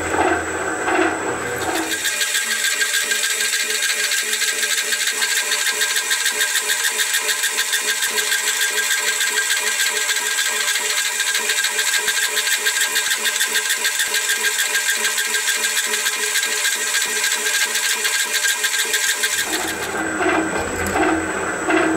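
Gack HE20 metal shaper running under power, its ram stroking back and forth while the cutter shaves a keyway into the bore of a helical gear. About two seconds in, the sound turns thinner and higher with a much faster rhythm, and it drops back to the slower, fuller stroking near the end.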